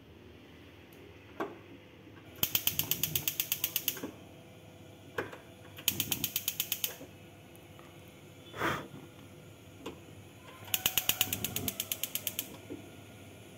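Rinnai three-burner built-in gas hob being lit one burner at a time: three rapid runs of igniter clicks, about ten sparks a second, each run preceded by a single knock of the control knob being pushed and turned. A brief rush of noise comes between the second and third runs.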